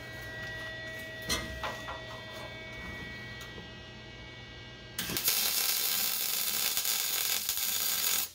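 A steady electrical hum with a few light clicks, then about five seconds in a Lincoln MIG welder strikes its arc and lays a tack weld, a loud, even crackling hiss for about three seconds that cuts off suddenly.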